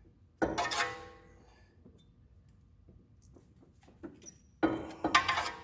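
Two sharp metallic clanks from a heavy brake caliper being handled and spun off its brake hose, each ringing on briefly. Light handling clicks come in between.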